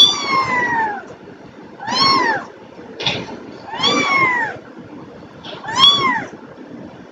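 Three-day-old Persian kittens mewing: four thin, high cries about two seconds apart, each sliding down in pitch.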